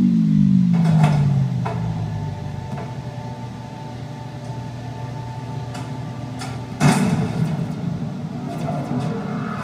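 Electronic sound effects from a projection show's soundtrack: a falling synthesized tone settles into a low steady hum, with a few sharp clicks in the first seconds and a loud hit about seven seconds in.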